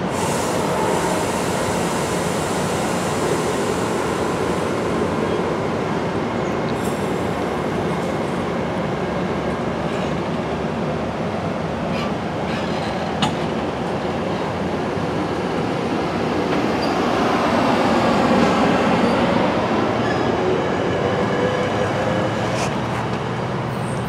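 Virginia Railway Express bilevel commuter coaches rolling past, a steady rumble of steel wheels on rail with a few sharp clicks, swelling a little about two-thirds through as the last car, the cab car, goes by.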